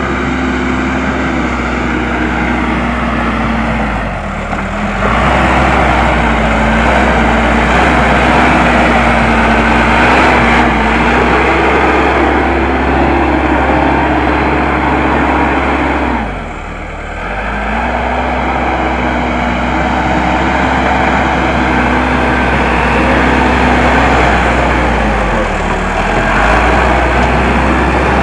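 Case 580M backhoe loader's diesel engine running hard under load while spreading earth, its revs sagging briefly a few times and picking up again, most deeply about halfway through.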